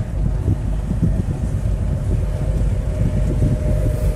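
A 2TE10MK twin-section diesel locomotive, with Kolomna 5D49 V16 diesel engines, running past with a freight train in tow, its tank cars rolling along behind. A steady tone sits over a low, continuous rumble, with wind buffeting the microphone.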